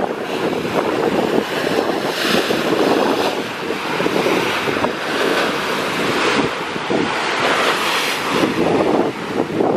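Wind buffeting the microphone over the rush and splash of sea water along the side of a moving boat, rising and falling unevenly.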